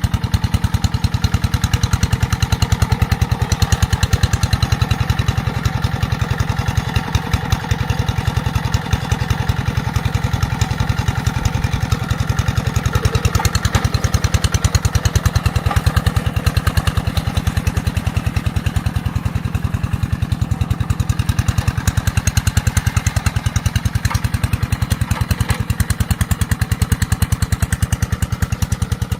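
Rice-paddy tractor's engine running steadily at work, a fast, even chugging that holds throughout.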